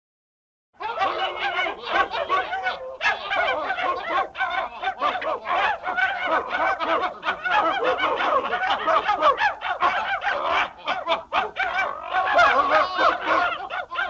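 Cartoon sound effect: a continuous stream of rapid, high-pitched chattering squawks, starting suddenly about a second in.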